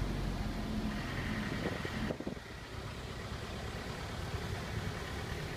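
A bus engine runs steadily, heard from inside the cabin, under an even rush of heavy rain and water. About two seconds in the sound drops abruptly, then carries on steadily at a lower level.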